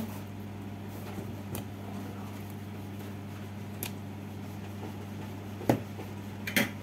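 Steady low electrical hum, with a few light clicks and knocks from soldering-iron work on a circuit board; the sharpest knock comes nearly six seconds in, with another just after it.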